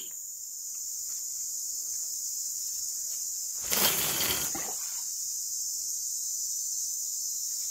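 Steady high-pitched drone of forest insects. About four seconds in comes one brief, loud rustle of handling close to the microphone.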